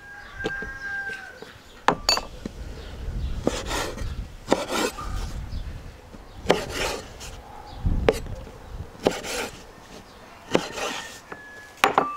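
A kitchen knife slicing dried apricots on a wooden cutting board: the blade knocks down on the board about once a second, unevenly, with rubbing and handling sounds in between.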